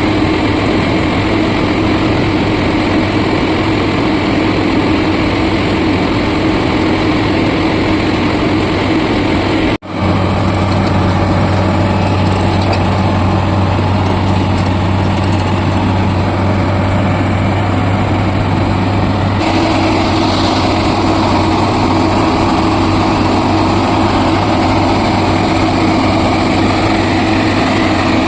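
Diesel engines of heavy machinery, an excavator and a hydra crane, running steadily under load. The sound cuts out for a moment about ten seconds in and shifts in tone near twenty seconds.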